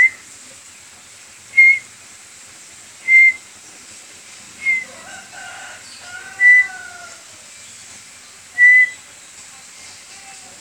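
White-rumped shama giving short, clear whistled notes at one pitch, six times, about every one and a half to two seconds; the first note slides up into it. A softer, lower tone rises and falls in the middle.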